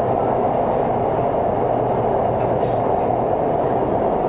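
Cabin noise of a CNR Changchun-built Shenzhen Metro train running between stations: a loud, steady rumble from wheels and running gear on the track.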